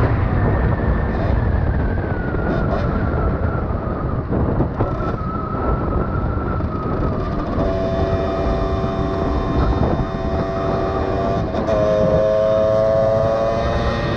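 Rieju MRX dirt bike's engine running under way: its high note slowly falls as the bike slows over the first half. A lower, steady note takes over, and the revs rise again a few seconds before the end, over a rough rushing noise.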